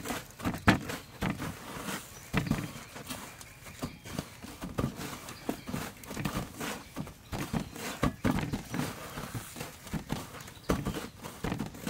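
Hands scooping, pressing and patting breadcrumbs onto raw chicken drumsticks in a metal tray: irregular dull pats and taps with crumbly rustling between them.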